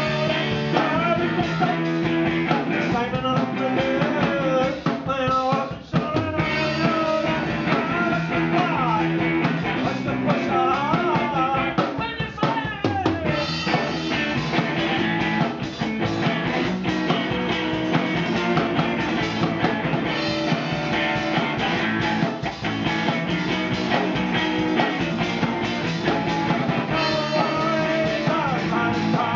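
Live rock band playing: a man singing over an electric guitar and a drum kit, with a brief break about six seconds in.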